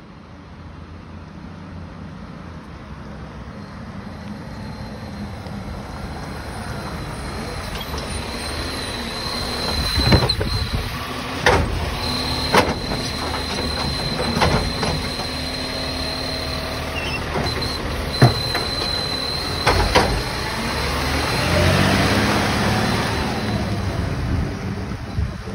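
Side-loading garbage truck pulling up with its diesel engine running louder as it nears, then its automated arm lifting and tipping a green-lidded FOGO bin, with about six sharp clunks and bangs as the bin is shaken out and set back down. A steady high-pitched whine runs under the middle part, and the engine grows louder again near the end as the truck pulls away.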